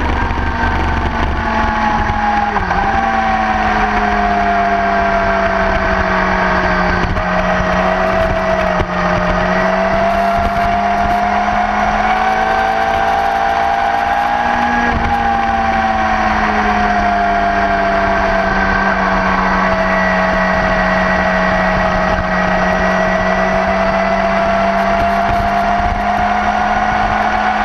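Sport motorcycle engine running hard at track speed, its pitch sagging over the first several seconds, climbing to a peak about halfway through, dipping briefly and then holding steady, with wind rushing past.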